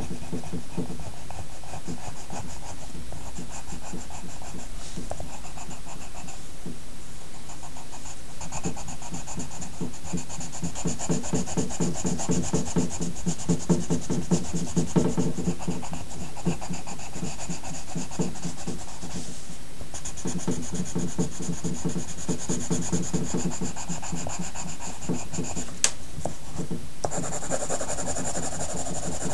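Pencil rubbing back and forth on paper in many quick strokes, as in shading a sketch. A single sharp click comes near the end.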